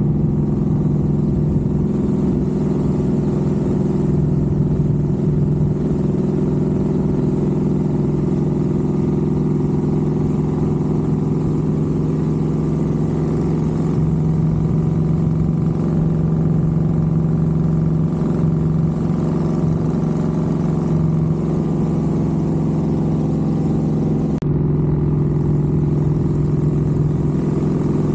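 Motorcycle engine running at a steady cruising speed, its note holding an even pitch with no revving. The tone shifts slightly about 24 seconds in.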